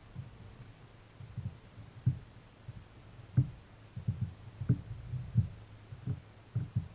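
Irregular dull thumps and a few sharper knocks on the boat as a netted catfish is lifted aboard and handled, the strongest knock about halfway through.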